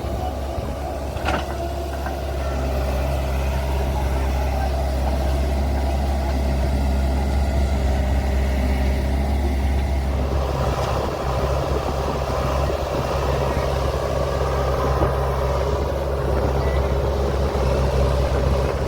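Diesel engine of a tractor or backhoe loader running steadily, with a single sharp knock about a second in. From about halfway it runs louder and harder, as if under load.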